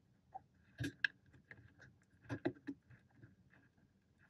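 Faint, scattered small clicks and taps of hands handling wiring and a cable connector inside an LED uplighter's opened housing.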